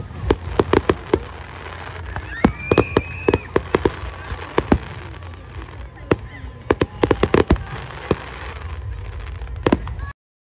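Fireworks display: aerial shells bursting in quick volleys of sharp bangs and crackles over a steady low rumble. The sound cuts off suddenly near the end.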